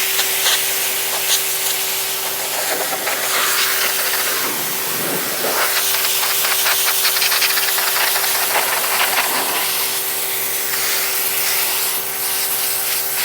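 Sun Joe 13-amp electric pressure washer running, its fan-pattern water jet hissing against a surface, which swells and eases as the wand moves. Under the spray runs the steady hum of the electric motor and pump.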